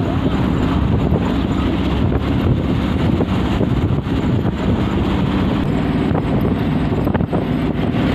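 Steady engine and road noise of a moving bus, heard from inside the bus, with some wind on the microphone and a few light rattles.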